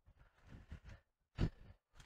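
Footsteps crunching through dry fallen leaves dusted with snow, an uneven stride of separate steps, the heaviest about a second and a half in.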